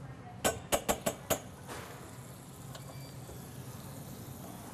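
A metal spoon taps on the rim of a stainless-steel skillet: five quick, ringing clicks about a second in, as butter is knocked off into the pan. A faint steady hiss follows.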